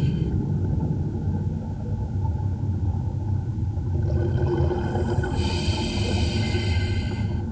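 A scuba diver breathing through a regulator, picked up underwater by the camera in its housing. There is a steady low rumble throughout, and the hiss of an inhalation comes at the very start and again from about five seconds in.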